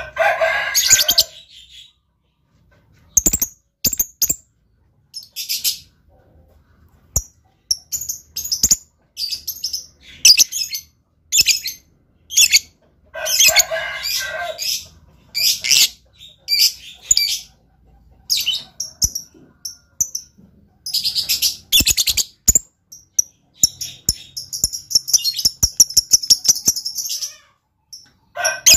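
Lovebird chattering in repeated bursts of high, fast chirps, with sharp clicks between them and a long rapid trill near the end.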